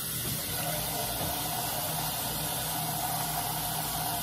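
Kitchen faucet running steadily into the sink as raw chicken pieces are rinsed under the stream.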